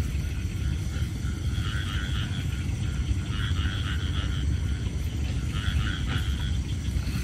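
Frogs calling in a chorus, their rattling calls coming in repeated bouts of about a second each, over a steady low rumble.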